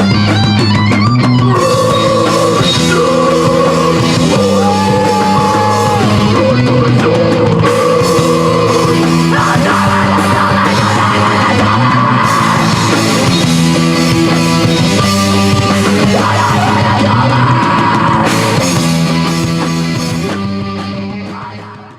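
Heavy metal music with distorted guitar chords and drums, and shouted vocals, fading out over the last few seconds as the song ends.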